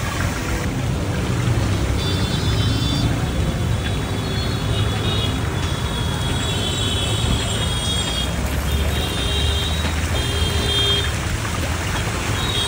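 Hot oil sizzling in a large kadhai as red marinated chicken is poured in, over a steady low rumble of road traffic.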